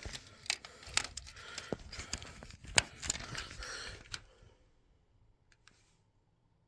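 Clicks, knocks and rustling of a battered smoke alarm being handled, with no alarm sounding, then silence for the last two seconds or so.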